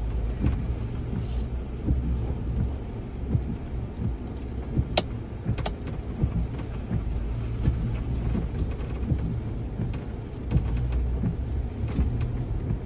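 Ford Bronco crawling slowly over a rough dirt trail, heard from inside the cab: a steady low engine rumble with tyres crunching over stones and frequent knocks from the body and suspension. Two sharp clicks come about five seconds in.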